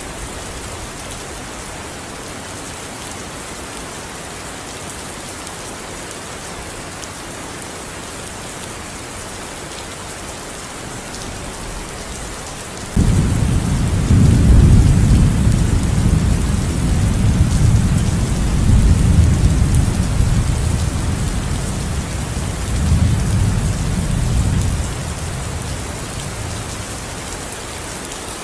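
Steady rain falling. About halfway through, a thunderclap breaks in suddenly and rolls on as a long low rumble with a few swells, then fades back under the rain after about twelve seconds.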